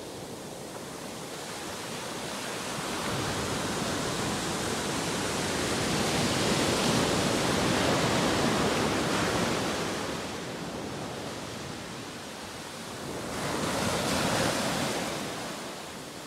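Ocean surf breaking and washing up the beach. It swells twice: a long surge building to a peak about halfway through, and a shorter one near the end.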